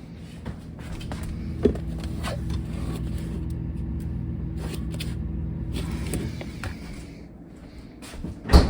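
A steady low machine hum lasting about five seconds and then dying away, followed near the end by a sharp knock.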